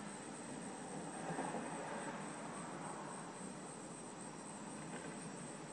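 Crickets trilling steadily in a constant high-pitched band, over a faint steady rumble.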